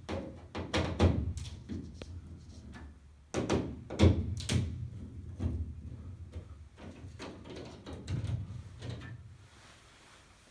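Irregular plastic clicks, knocks and thumps from a residential fire alarm unit being handled and taken off or fitted to its mount, the loudest knocks about a second in and about four seconds in.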